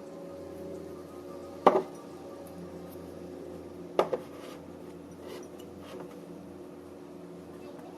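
Kitchen containers being set down and handled on a pantry shelf: two sharp knocks, the second a quick double clink, then a few lighter clicks.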